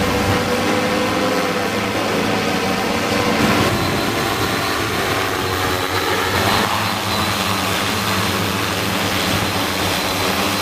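Multirotor firefighting drone's propellers whirring steadily in flight: a loud buzzing drone with several steady pitches, changing abruptly about 3.5 and 6.5 seconds in.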